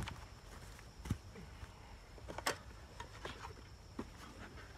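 A handful of faint knocks and clicks, spread a second or so apart, of beekeeping gear being handled: a wooden box and its contents picked up and set down.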